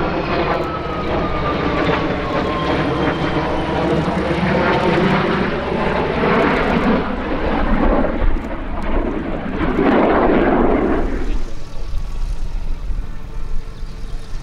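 Jet engines of an Airbus A330 MRTT tanker and a Dassault Rafale fighter flying past together: a whine falling in pitch over broad jet noise in the first few seconds, the noise staying loud and then dropping away about eleven seconds in as the aircraft fly off.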